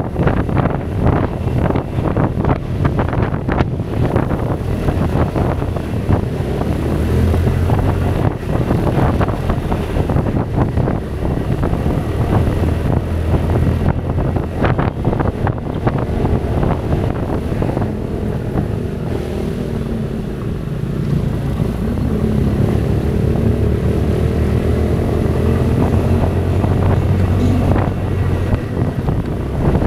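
Kymco Xtown 300i maxi scooter's single-cylinder engine running steadily as it climbs, with heavy wind buffeting on the microphone. The buffeting eases about halfway through, leaving a steadier engine note that wavers in pitch.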